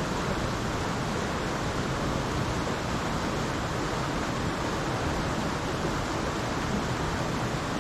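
Mountain trout creek rushing over rocks: a steady, even wash of water noise that does not change.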